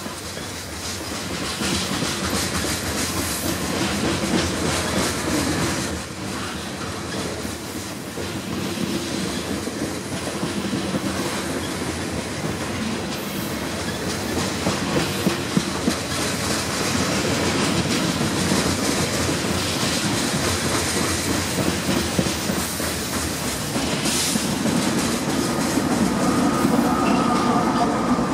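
Loaded covered grain hopper cars rolling past at speed, steel wheels clicking and rumbling over the rails. Near the end the diesel engines of BNSF locomotives placed in the train come up and grow louder.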